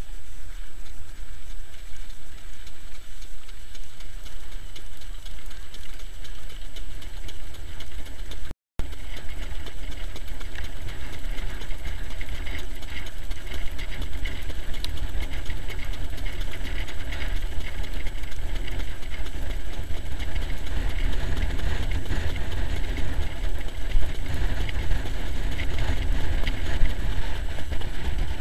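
Steady wind buffeting and rolling rumble on the microphone of a camera mounted on a trotting sulky as the horse pulls it along a dirt track, growing louder in the second half. The sound cuts out for a moment about a third of the way in.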